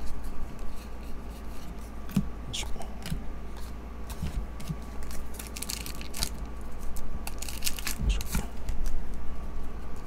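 Trading cards sliding against one another, then a foil trading-card pack wrapper torn open and crinkled by hand, with short crackling tears thickest past the middle.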